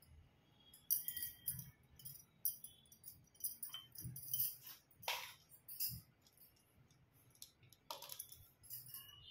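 Bangles clinking and jingling in short, scattered bursts as a hand handles small ornaments, with light clicks, and sharper clicks about five and about eight seconds in.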